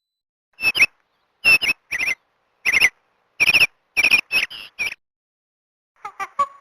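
Alcatel OT-835 mobile phone ringtone: short electronic chirps that bend up and down in pitch, about eight of them, some in quick pairs. After a second's pause, a different, lower set of short tones starts just before the end.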